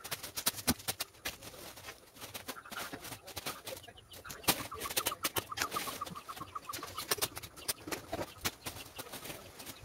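Irregular sharp snaps and cracks of leafy branches being hacked with a machete and pulled apart. About halfway through, a bird gives a quick run of short repeated notes lasting a second or two.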